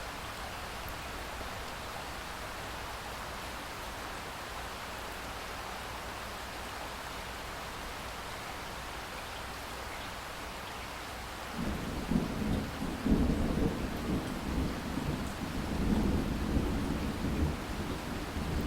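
Steady rain falling, then about two-thirds of the way in a low rumble of thunder breaks in and rolls on in surges over the rain.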